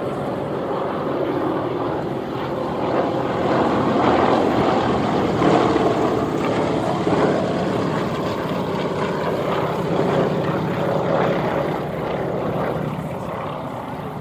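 Formation of piston-engined propeller aerobatic planes flying past overhead, their engines droning together. The drone swells to its loudest in the middle and eases off near the end.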